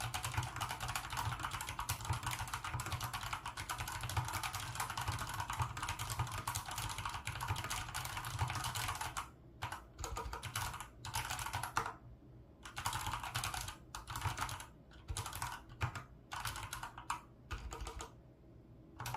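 Typing on a COX CK01 PBT mechanical keyboard with brown tactile switches. Keystrokes run in a dense continuous stream for about the first nine seconds, then come in shorter bursts broken by brief pauses.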